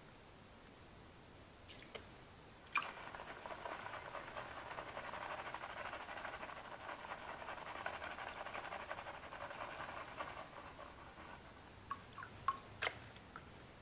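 Wet sand and gravel swishing and rattling in a plastic gold pan as it is shaken and swirled under water, panning out sluice concentrate. It starts with a sharp knock, runs as a gritty wash for about eight seconds and fades, and a few light knocks come near the end.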